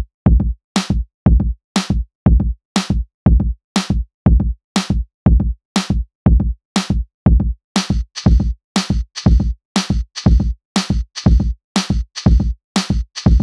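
Background music: a steady electronic drum-machine beat at about two beats a second, with a hissing cymbal layer joining about eight seconds in.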